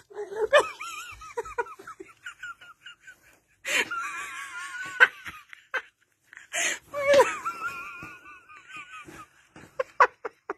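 A person laughing hard in high-pitched, wheezy peals of rapid repeated pulses. The laughter comes in three long fits with short breaks between them.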